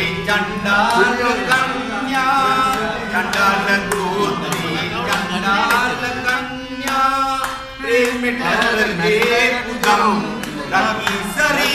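A group of men singing a song together, with hand-clapping and a steady percussion beat keeping time.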